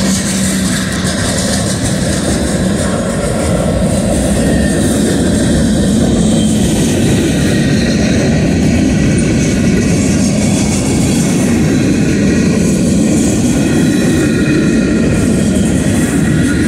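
A freight train of tank cars, boxcars and centerbeam lumber cars rolling past close by: the steady loud rolling noise of its wheels on the rails.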